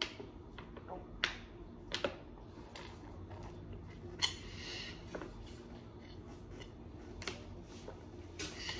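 A few sharp clicks and taps of small objects being handled, scattered across several seconds, with a short rustle about four seconds in, the loudest moment.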